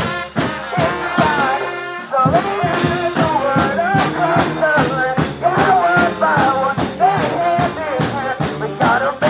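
Brass band playing an upbeat tune live, horns carrying the melody over a steady drum beat. About two seconds in there is a short break before the full band comes back in.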